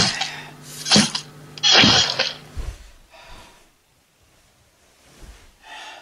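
Pained gasps and groans from a person being stabbed: three sharp vocal bursts about a second apart, the last one drawn out, then a couple of faint breaths as she sinks down.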